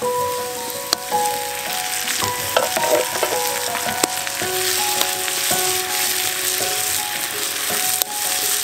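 Food sizzling in a frying pan, with a few light clicks of a utensil against the pan. Background music with held notes plays over it.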